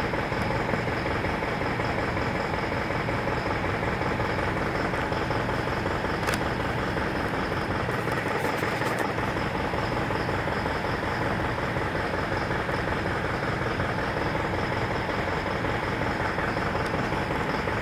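Isuzu NPR diesel engine idling steadily with a rough, knocking clatter, the sign of an injector circuit fault on cylinder 2 (code P0202), put down to a loose connection. A brief click about six seconds in.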